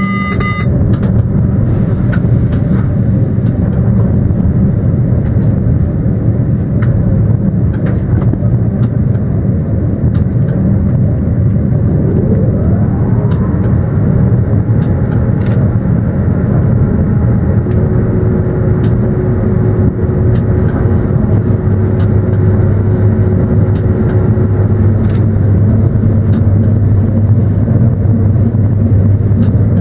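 Train running along the line, heard from inside the locomotive cab: a steady rumble and low hum with scattered clicks from the wheels on the track. A rising whine comes in about twelve seconds in, and a steady higher tone holds for several seconds in the second half.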